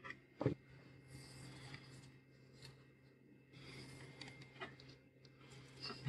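Faint rustling and small clicks of thin insulated wires being handled and pulled, with one sharp knock about half a second in.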